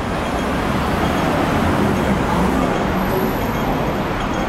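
City road traffic: a steady rumble and hiss of passing vehicles.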